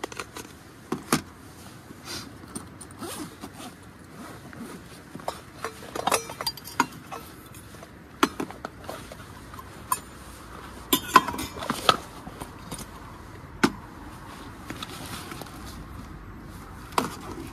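Stainless steel camping cups, a plastic food container and a moka pot being set down on a folding aluminium camp table: a dozen or so separate clinks and knocks, with a quick cluster about eleven to twelve seconds in.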